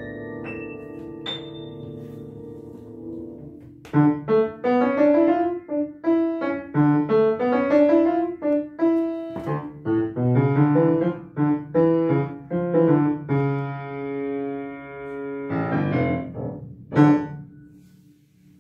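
Upright acoustic piano being played: a few soft high notes over a held chord, then from about four seconds a loud, fast run of notes, a long held chord, and a couple of closing chords near the end that die away.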